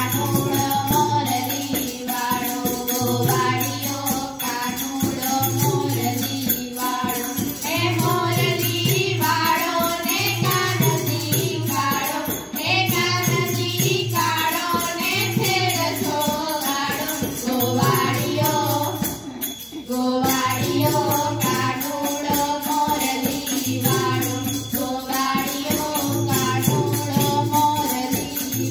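Children's voices singing a devotional prayer song together through wall-mounted loudspeakers, with a steady low drum beat about once a second and jingling hand percussion.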